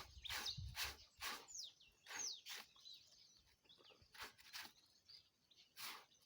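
Clothes being hand-washed in stream water: irregular splashes and swishes of wet cloth, several a second at first, then sparser. Small birds chirp briefly over them.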